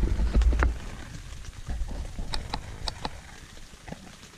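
Heavy rain falling on a tent, heard from inside. A low rumble from the camera being moved comes in the first second, and a few sharp ticks follow about two to three seconds in.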